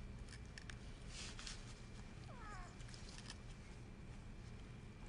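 Faint handling of a stiff preserved frog specimen as its mouth is worked open: small clicks and a brief rustle about a second in. About halfway through, a short cry rises and falls in pitch, like a cat's meow.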